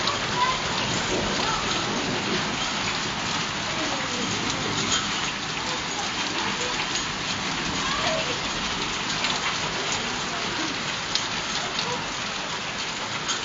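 Heavy fall of small ice pellets pattering on the ground and the metal door: a steady hiss dotted with many small sharp ticks.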